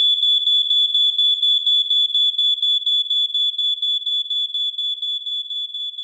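GAN-06 cigarette smoke detector's alarm sounding, the sign that it has detected smoke: a loud, high-pitched electronic tone pulsing rapidly, about four pulses a second, slowly growing quieter in the second half.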